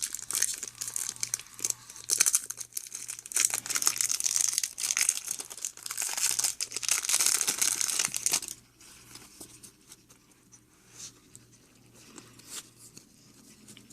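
Foil Magic: The Gathering booster pack wrapper being torn open and crinkled for about eight seconds, then quieter handling with a few light clicks.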